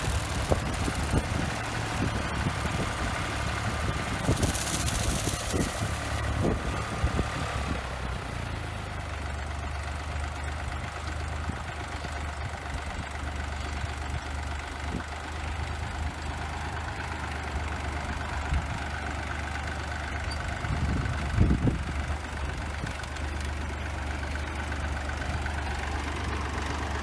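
Fordson tractor engine running steadily at PTO speed while it pulls a slasher mower over rough ground, with scattered knocks and thumps, the loudest about two-thirds of the way through. The engine note shifts a little about eight seconds in.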